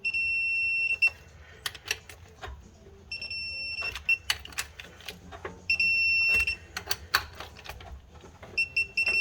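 Digital torque adapter on a wrench beeping steadily for about a second each time a flywheel bolt reaches its 40 ft-lb target, three times, then a quick run of short beeps near the end. Sharp clicks of the wrench working the bolts come between the beeps.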